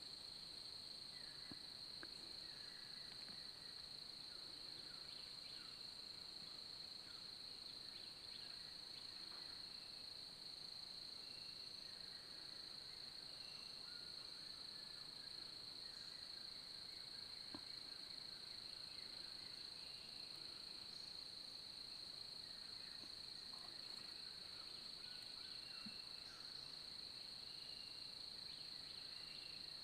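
Faint, steady high-pitched insect drone, crickets or cicadas holding one continuous note, with faint scattered short chirps underneath.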